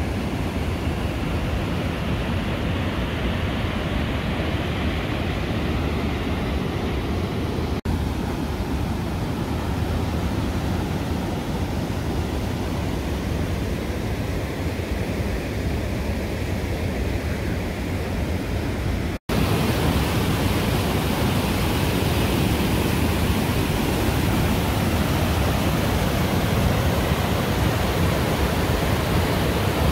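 Mountain creek in flood, running high over its banks and rushing through white-water rapids in a steady wash of water noise. After a brief gap about two-thirds of the way in, the rushing is a little louder.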